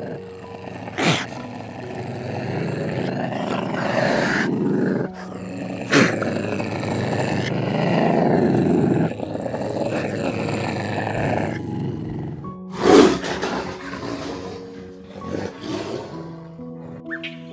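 A big cat's deep, rough growling roars, three long calls in a row, over soft background music, with a few sharp cracks, the loudest about 13 seconds in.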